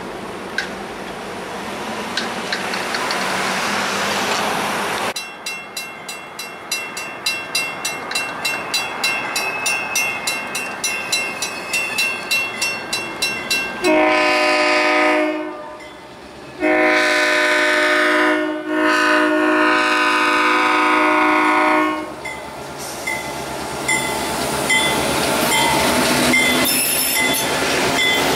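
Grade-crossing bell ringing at about three dings a second, then a diesel locomotive's horn sounds twice, a short blast and then a long one. The locomotives and freight cars then rumble past close by while the crossing bell keeps dinging.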